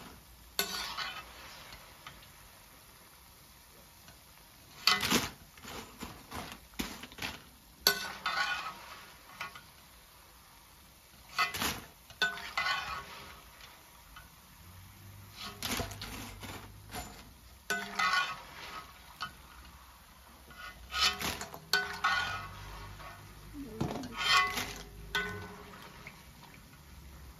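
A metal spoon clinking against a pot or bowl every few seconds while fried plantain chips are scooped and moved, each clink followed by a short patch of crisp crackling.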